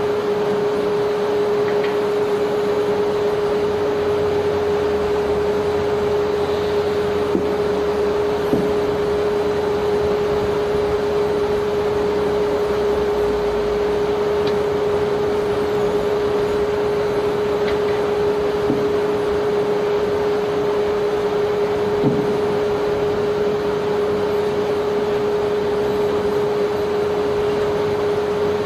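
Steady drone of barge unloading machinery, a constant pitched hum over a wash of noise, with a few faint knocks along the way.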